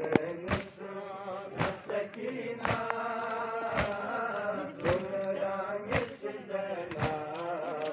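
Men chanting a lament together in a steady rhythm, with sharp strikes in unison about once a second, typical of a crowd beating their chests (matam) to the chant.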